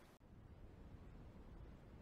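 Near silence: a faint low rumble, the muffled sound picked up by a camera under the pond water.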